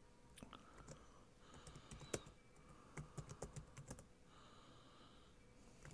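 Computer keyboard typing faintly in three short bursts of keystrokes, with the sharpest click about two seconds in.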